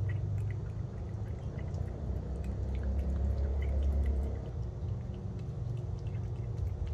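Tabby cat licking treat paste from a squeeze tube: quick wet smacking and lapping clicks, over a steady low rumble.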